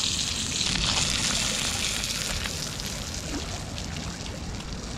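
Skin-on pigfish frying face down in oil in a hot pan on a gas stove: a steady sizzle with fine crackling that eases a little after about two seconds, over a low rumble.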